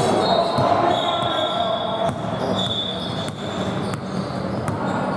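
Indoor basketball game: a ball bouncing on the court in a large echoing gym, with sharp knocks, short high sneaker squeaks and players' voices.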